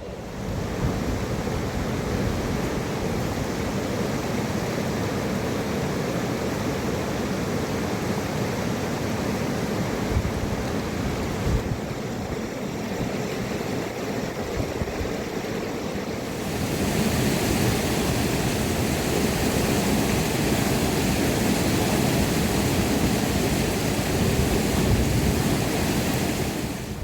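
Mountain river water rushing, a steady noise that grows louder and brighter about two-thirds of the way in.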